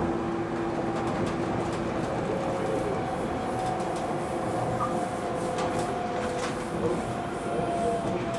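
Stockholm metro train running at steady speed, heard from inside the carriage: an even rumble of wheels on rails with several steady whining tones, and a few faint clicks.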